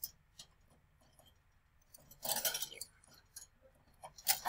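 Light clinks and knocks of a plastic water bottle and its holder against the wire bars of a guinea pig cage as the bottle is fitted, with a short rattle about two seconds in and a sharp knock near the end.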